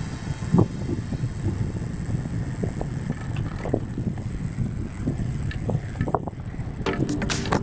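Wind buffeting an action camera's microphone during a bike ride, a steady low rumble with scattered small knocks and pops.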